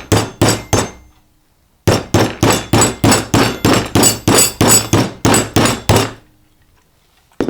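Hammer blows driving a stuck router bit through its seized collet, about four a second. A short run of blows comes first, then a pause, then a longer run of about fifteen, and a single blow near the end.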